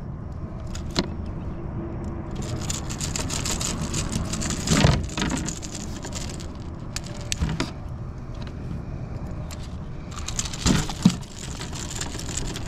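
A landed bass thrashing in a landing net while the crankbait's treble hooks are worked loose: metallic jingling, rattling and clicking. There are two busier stretches, about two and ten seconds in, each ending in a louder knock.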